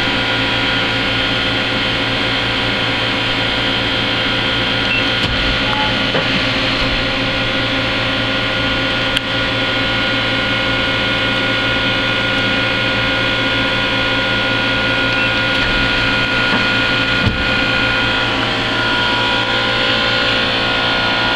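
Hardinge Conquest 42 CNC lathe running with a steady mechanical hum and whine of several tones, and a few short clicks about 5, 9 and 17 seconds in.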